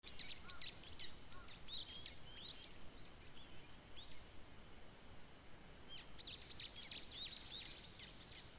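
Small songbirds chirping: many quick, high, sweeping calls, busiest from about six seconds in, over a faint steady outdoor hiss.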